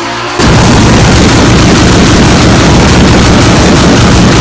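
Turbocharged BMW M50 straight-six in an E30, its exhaust firing a rapid, continuous machine-gun-like string of bangs and pops from an 'AK47' pops-and-bangs flame tune. It starts suddenly about half a second in and throws flames from the tailpipe.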